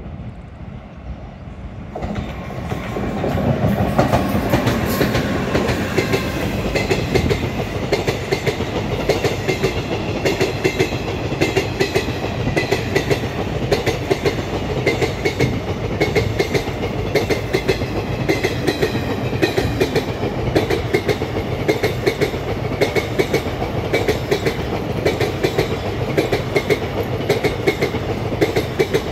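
A vehicle carrier freight train passes close by at speed. The sound rises suddenly about two seconds in as the locomotive arrives, then becomes a steady, rapid clickety-clack of wagon wheels over the rail joints.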